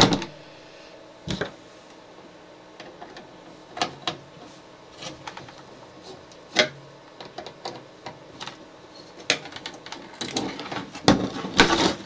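Irregular light clicks and taps of wires and terminal screws being handled while the safety-sensor wires are disconnected from a garage door opener's terminal strip, with a few sharper clicks and a denser run near the end.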